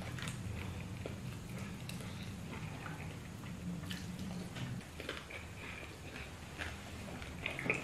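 Close-up eating sounds: a man chewing and working soft banku dough with his fingers, making small wet clicks and smacks. Under them runs a low steady hum that stops a little under five seconds in.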